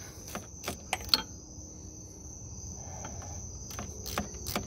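Ratchet socket wrench clicking in short runs as the lower thermostat-housing bolt is tightened, with a pause in the middle. A steady high-pitched whine sounds underneath.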